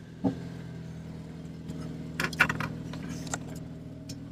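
Car engine running at low revs inside the cabin, a steady low hum that comes up a moment in, with a few short clicks and rattles about two seconds in.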